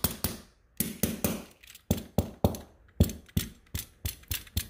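Utility-knife tip jabbing into drywall, a rapid uneven run of sharp taps and crunches, about four a second. The blade goes straight through the board: the drywall is weak enough to poke through.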